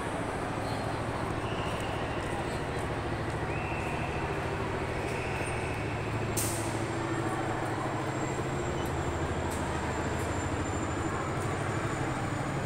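Steady low hum of ride machinery under crowd chatter in an amusement hall. A faint high steady tone starts about three and a half seconds in and cuts off with a brief sharp hiss about six seconds in, as the drop tower's seat ring begins to rise.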